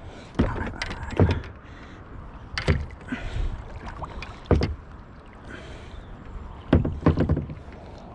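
Plastic kayak hull knocked and bumped about half a dozen times at irregular intervals as gear and fishing tackle are handled in the cockpit.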